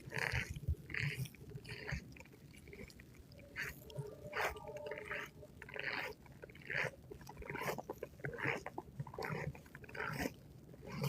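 Footsteps crunching through snow and ice, a step roughly every two-thirds of a second.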